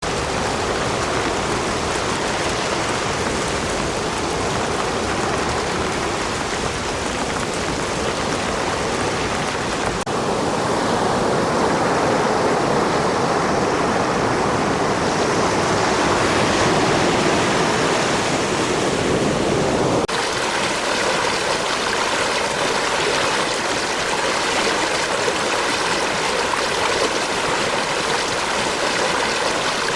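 Three water-sound recordings in turn, each a steady rushing hiss, with abrupt cuts about ten and twenty seconds in: rain over beach surf, then beach surf alone, swelling and easing, then a running creek.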